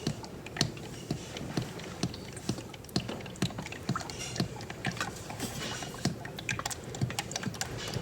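Engine oil glugging out of a jug as it is poured into an engine's oil filler, a steady run of gulping pops about twice a second.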